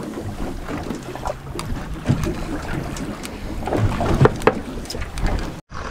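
Wind and water noise on an open fishing boat's deck, with scattered small knocks and clicks as a fish is handled and unhooked. The sound breaks off suddenly near the end.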